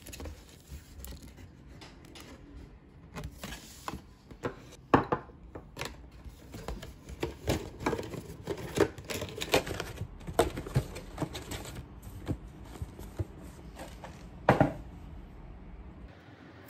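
Paper doughnut box and its paper sheets being handled: rustling, crinkling and tapping, with sharp knocks on a table, the loudest about five seconds in and again near the end.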